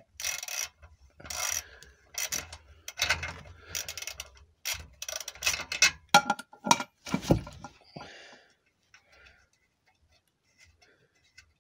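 Socket ratchet clicking in uneven bursts as it runs off the freshly loosened nut of an exhaust clamp at the rear silencer. The clicking stops about eight seconds in.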